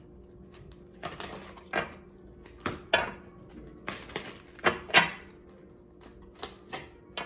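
Tarot deck shuffled by hand: irregular papery slaps, flicks and short riffles of the cards.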